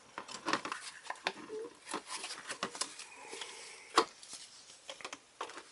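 Cardboard box and plastic packaging being handled: rustling, scraping and scattered small clicks as the box is opened and a foam insert lifted out, with one sharper knock about four seconds in.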